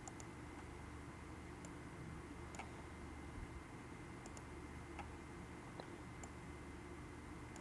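Faint computer mouse clicks, a handful spaced a second or so apart, over a low steady room hum.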